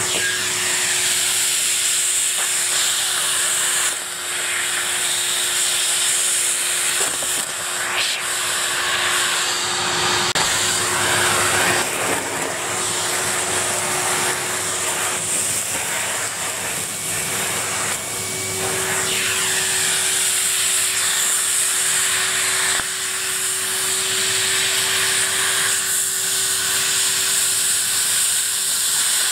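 Numatic Henry cylinder vacuum cleaner running steadily with a constant motor hum and rushing air, as it sucks dry leaves up off a carpet. The sound shifts a little now and then as the nozzle moves.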